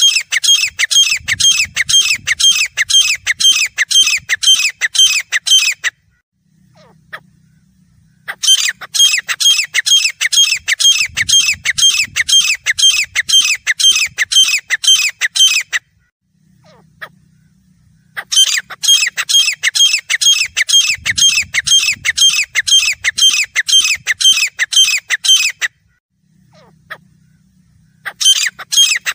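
Grey francolin calling: a loud series of rapid, repeated shrill notes, about three a second. The notes come in bursts of about seven seconds with pauses of two to three seconds between them.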